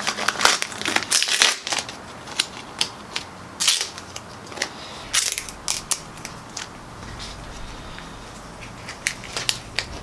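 Australian plastic $5 banknote being folded, crinkled and pressed by hand inside a torn bicycle tyre as a tyre boot. It makes sharp, irregular crackles, densest in the first two seconds, then scattered.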